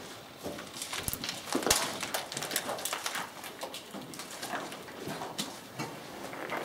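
Footsteps of several people crunching and knocking on rubble and grit over a concrete floor, with scattered clicks of gear. The knocks come unevenly and are loudest a little under two seconds in.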